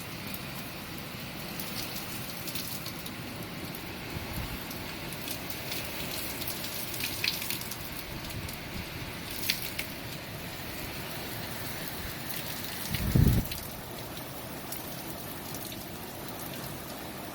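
Heavy rain and wind of a derecho storm: a steady hiss with scattered sharp spatters of drops. A brief low rumble stands out about two-thirds of the way through.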